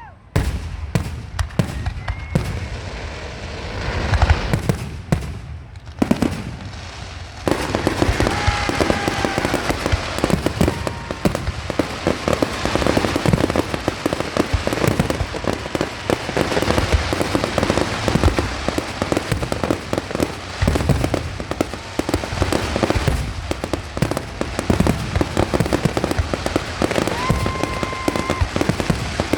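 Aerial fireworks exploding: separate bangs at first, then from about seven seconds in a dense, unbroken barrage of cracks and reports, as in a finale. A few short whistles sound over it.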